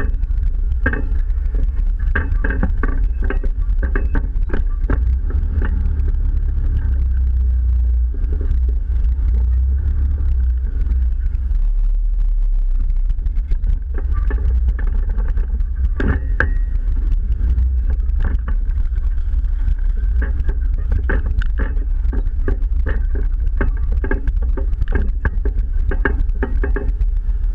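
Jeep off-roading at crawling speed: a steady low engine rumble with frequent knocks and rattles from the body and suspension as it rolls over the rough trail.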